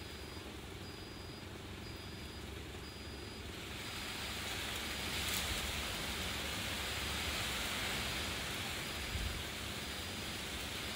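Steady outdoor background hiss with a low rumble, growing louder about four seconds in, with a faint high beep repeating at even intervals.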